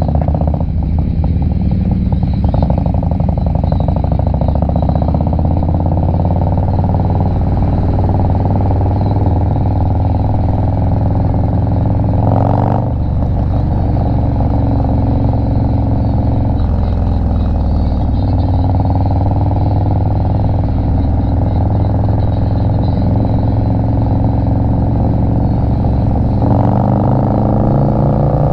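Harley-Davidson Low Rider S's Milwaukee-Eight 114 V-twin, fitted with an S&S 475 cam, running under way on the road. The engine note dips briefly about twelve seconds in, and the revs climb near the end.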